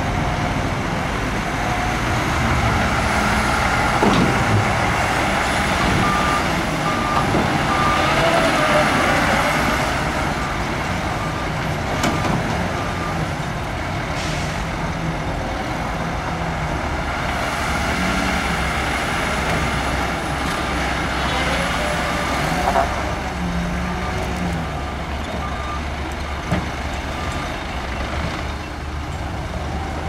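Heavy diesel earthmoving machinery running, a bulldozer and dump trucks, with a reversing alarm giving a steady series of beeps in two spells, a few seconds in and again after the middle. A few sharp knocks stand out.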